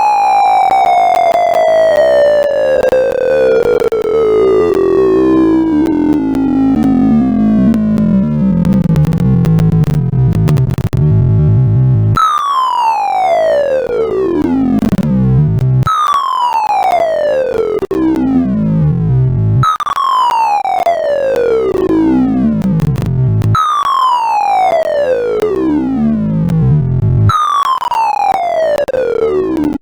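Sorting-algorithm sonification: a rapid stream of computer-generated tones whose pitch follows the values being accessed, so the sound glides. A long falling glide over the first twelve seconds gives way to falling sweeps repeated about every four seconds.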